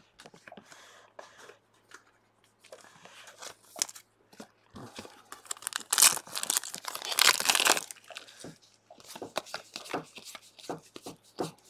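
Foil booster pack of trading cards torn open and its wrapper crinkling, loudest about six to eight seconds in, followed by short clicks and flicks of cards being thumbed through.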